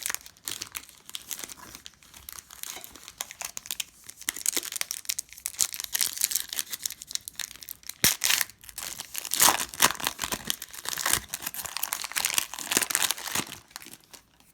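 Plastic trading-card pack wrapper being torn open and crinkled by hand, a dense crackling that is loudest over the last few seconds and stops just before the end.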